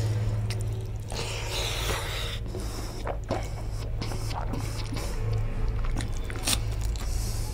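Fingers squishing and mixing rice with curry on a plate, then a crisp bite into a raw onion slice near the end, followed by chewing, over a steady low hum.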